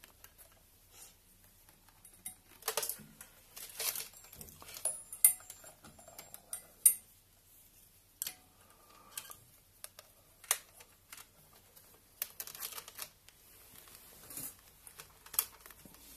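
Scattered light clicks and rustles of hands handling loose wires and plastic connectors, irregular and sudden.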